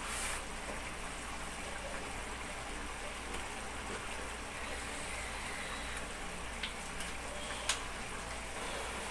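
Taro leaves in coconut milk simmering in a wok: a steady, even simmering hiss, with two short clicks near the end.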